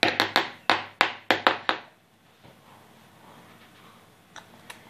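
A quick, uneven run of about eight sharp taps or knocks in the first two seconds, then quiet apart from two faint clicks near the end.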